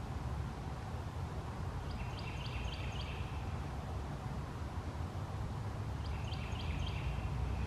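A bird calling twice, each time a quick run of about four short high notes, over a steady low rumble.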